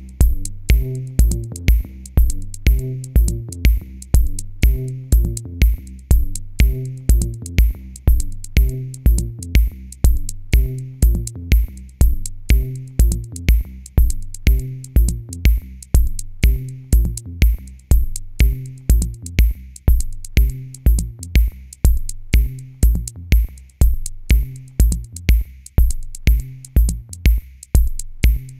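Electronic background music with a steady drum-machine beat and a bass line.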